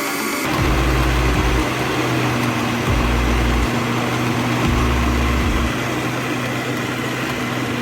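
Electric kitchen blender motor running steadily while blending soaked beans with tomatoes, red bell pepper and onions into a smooth batter; its hum drops in pitch about half a second in.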